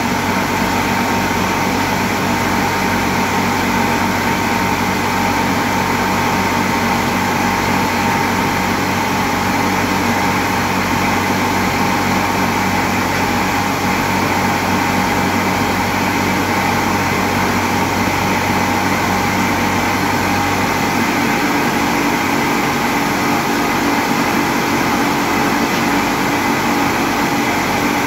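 Vertical flour mills, belt-driven by electric motors, running: a loud, steady mechanical drone with constant humming tones. About three-quarters of the way through, the lowest hum fades and a slightly higher one takes over.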